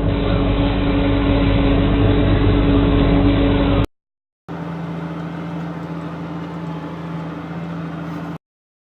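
Two separate clips of a tractor engine running steadily, each about four seconds long. Each is cut off abruptly, with half a second of silence between them. The second is quieter.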